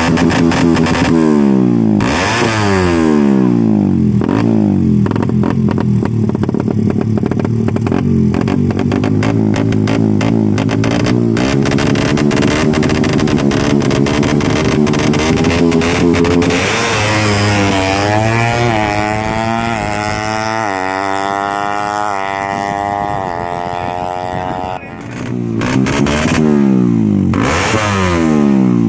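Ported Suzuki Satria FU motorcycle engine running through an RMC aftermarket exhaust. It revs up and down sharply about two seconds in, holds a steady high note, then climbs in several rising steps as it pulls up through the gears. Near the end, after a brief dip, it blips up and down again.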